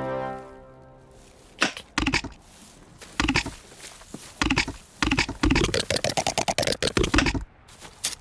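Music fades out at the start, then a series of sharp knocks and clicks that build into a fast, dense clatter about five seconds in and stop abruptly near the end.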